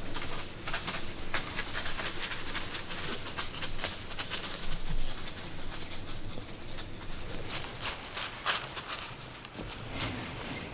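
White-tailed deer stepping through dry leaf litter: an irregular run of crunching, rustling footsteps.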